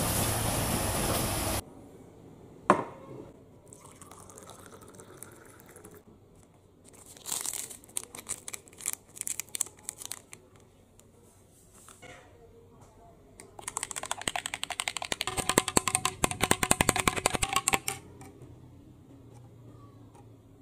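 An instant-coffee sachet crinkled and torn open and its powder shaken into a glass of water. Then a metal spoon stirs fast, clinking rapidly against the glass for about four seconds. A second and a half of loud outdoor noise cuts off at the start.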